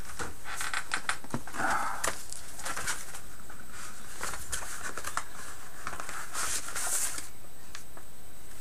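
Packaging being handled and unpacked from a model kit box: crinkling and rustling of wrapping with many small clicks and taps, and a louder rustle about seven seconds in.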